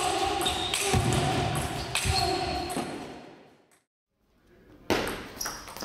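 Voices shouting and cheering in a large hall right after a table-tennis point, with a couple of thuds, fading out about three seconds in. After a second of silence, hall sound with sharp clicks of a table-tennis ball starts again near the end.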